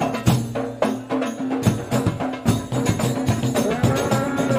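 Hadrah ensemble playing rebana frame drums over a large bass drum in a fast, dense beat. A melodic line joins over the drums in the second half.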